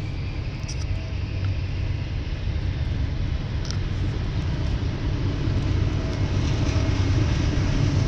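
Approaching diesel train locomotive, a low engine rumble growing steadily louder as it nears.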